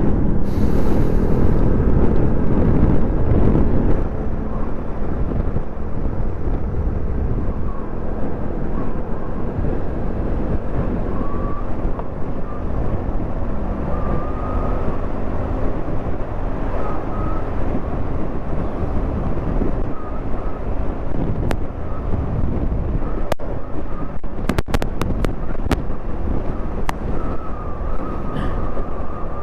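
Steady engine and road noise of a moving vehicle, louder for the first few seconds and then a little quieter.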